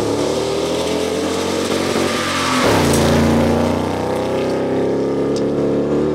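Off-road rally 4x4's engine revving hard as it launches from the start line and passes close by. Its pitch dips sharply about two and a half seconds in, then climbs again as it accelerates away.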